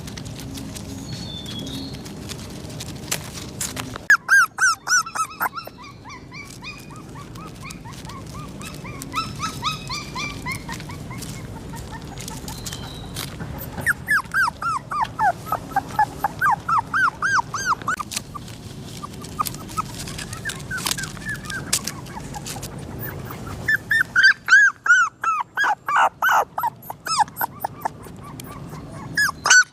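A puppy whimpering and crying in quick series of short, high-pitched whines, about four a second, in three bouts: around four seconds in, from about fourteen to eighteen seconds, and again near the end.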